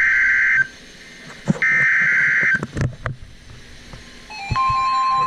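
Emergency Alert System SAME header: harsh, buzzy digital data bursts about a second long, the last of them ending about two and a half seconds in. About four seconds in, the steady attention tone begins.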